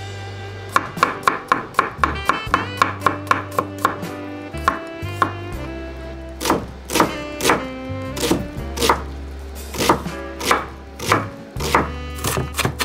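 Kitchen knife slicing radishes and then dicing onion on a wooden cutting board: a run of sharp taps of the blade striking the board.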